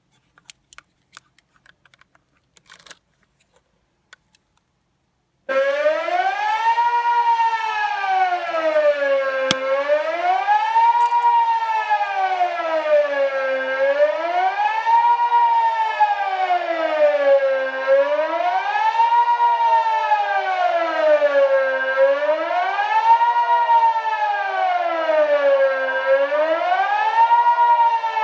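Civil defence siren sounding the general alarm, the Swiss warning of imminent danger: a steady, regular rising-and-falling wail, about one rise and fall every two seconds. It starts abruptly about five seconds in, after a few faint clicks.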